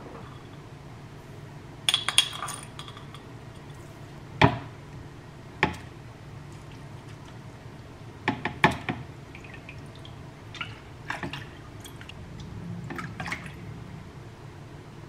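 Tableware being handled: several separate clinks and knocks of dishes and glass, over a low steady hum.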